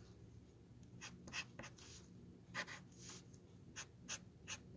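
Felt-tip marker drawing on a wooden spoon: faint, irregular short scratchy strokes, starting about a second in.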